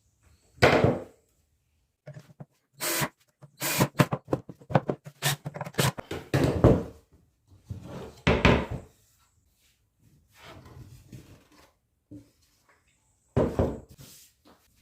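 Irregular knocks and thunks of hard objects being handled and set down, about a dozen sharp strikes with a softer scraping stretch just past the middle, typical of woodworking tools and wooden pieces being moved about.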